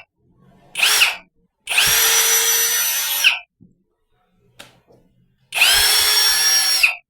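Oraimo MaxDrill cordless drill running with no load in trigger pulls: a short burst about a second in, then two runs of about a second and a half each. Each run whines up to speed and winds down when the trigger is let go.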